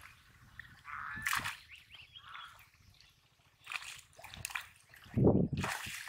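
Water sloshing and splashing around a cast net as it is hauled in and lifted out of shallow water. The loudest splash comes about five seconds in as the net leaves the water, with water pouring off it.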